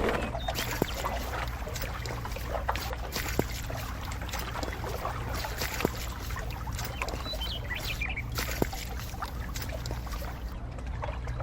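A small motor running steadily, with a few sharp clicks and knocks.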